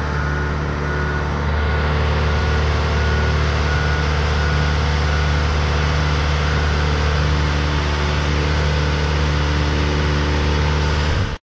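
Marine travel lift's engine running steadily while it hoists a sailboat in its slings, a little louder from about a second and a half in, with a warning beeper repeating about twice a second over the first few seconds. The sound cuts off suddenly near the end.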